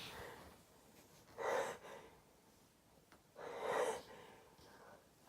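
A person gasping twice, about two seconds apart, with sharp breathy in-breaths as the build-up to a sneeze.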